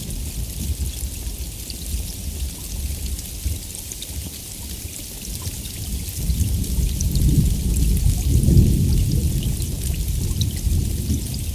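Steady heavy rain with fine droplet patter, and a low rolling thunder rumble that builds from about halfway, peaks, then eases off.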